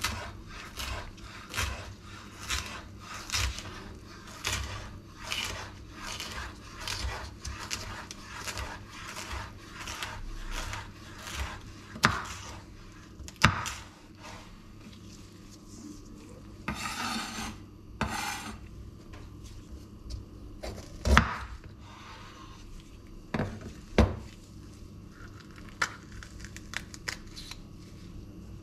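Chef's knife slicing a red bell pepper into strips on a bamboo cutting board, each cut ending in a knock on the wood, about two a second for the first half. After that come a few louder single knocks and a short scrape of the knife over the board.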